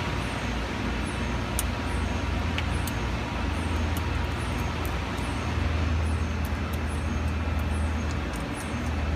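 Steady low machine hum with an even hiss, the running noise of the lab's vacuum-coater equipment and air handling. A few faint metallic ticks come through as a hex key works the set screws on the sputtering cathode's target shroud.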